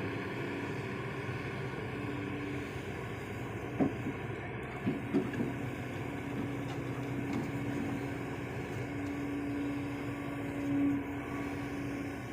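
Long-reach excavator running steadily, with a humming tone that comes and goes and a few short knocks about four to five seconds in.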